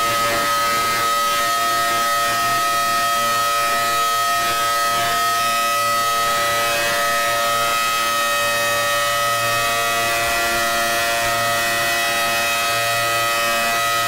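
Emergency alarm siren sounding continuously: a loud, steady chord of several held tones that neither rises nor falls.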